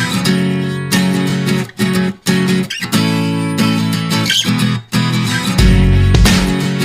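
Background music of strummed guitar chords in a regular rhythm, with a bass line coming in about five and a half seconds in.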